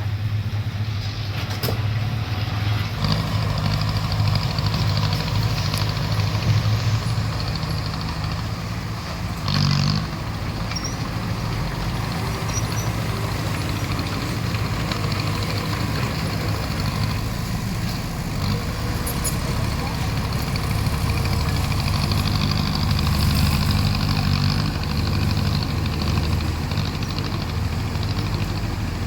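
Heavy diesel engine of a bulldozer running steadily under work, with a brief knock about ten seconds in and a slight rise in engine load a little past two thirds of the way through.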